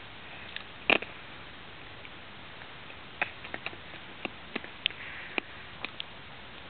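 Baby hiccupping: one short, sharp hic about a second in, followed by a scattering of faint little clicks.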